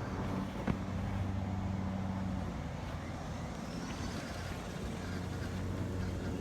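Kobalt cordless brushless self-propelled lawn mower running with a steady hum from its motor and spinning blade, with one sharp click about a second in.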